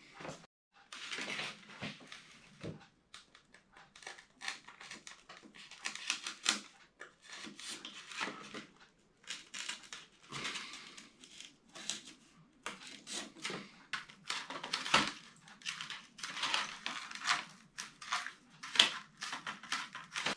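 Foam board model-plane parts being handled and worked on a cutting mat: irregular scratching, rustling and small clicks, with a few sharper knocks.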